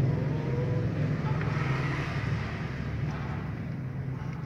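Motor vehicle engine idling: a steady low hum that slowly fades over the few seconds.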